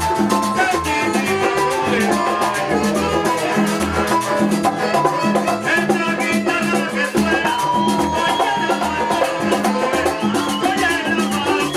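Latin dance music in a salsa style, with drums and percussion over a steady, repeating bass beat.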